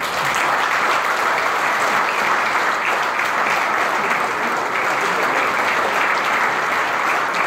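A room of guests applauding steadily, a dense, even clapping.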